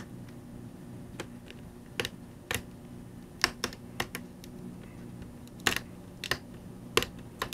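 Plastic screen bezel of a Dell Inspiron 15 laptop being peeled off by hand, giving a string of irregular sharp clicks and snaps as it comes away from the display, with a low steady hum underneath.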